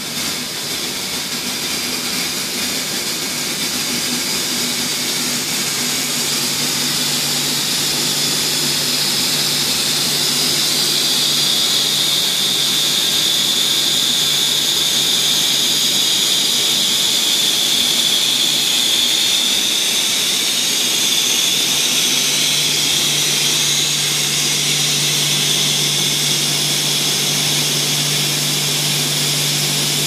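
Machinery of an XLPE power-cable extrusion line running: a steady, loud mechanical din carrying a high whine and a low hum that comes and goes.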